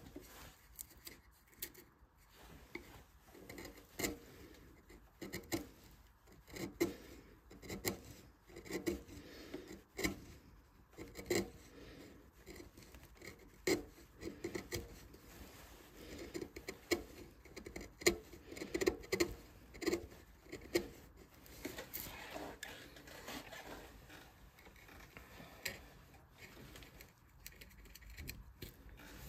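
Hand carving chisel cutting into a wooden vase for relief carving: short, irregular scrapes and clicks, about one or two a second.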